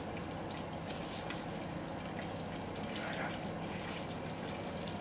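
Oil and butter sizzling steadily in a frying pan on the stove, an even crackling hiss.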